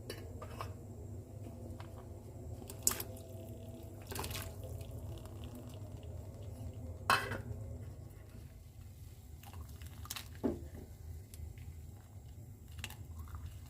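Dishes and utensils clinking and knocking now and then, about five sharp strikes, with some liquid sounds, over a steady low hum.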